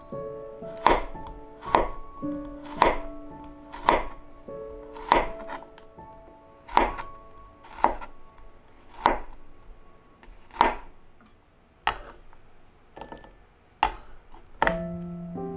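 Kitchen knife chopping food on a cutting board: slow, separate cuts, about one a second, each ending in a sharp knock of the blade on the board.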